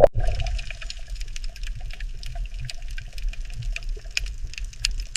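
Water trickling and dripping: a steady low wash with many small, irregular drips and splashes.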